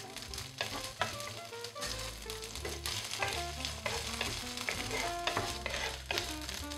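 Dried chilies, garlic, ginger and spring onion sizzling in hot oil in a non-stick pan, stirred and scraped with a wooden spatula. Light background music plays under it.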